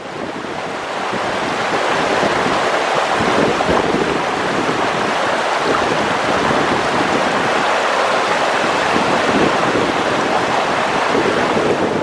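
Mountain stream rushing and splashing over rocks in a steady stream of water noise, fading in over the first second or two.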